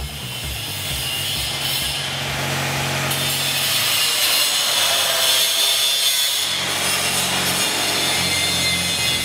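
Angle grinder cutting metal: a steady, harsh grinding hiss that builds up over the first couple of seconds and then holds.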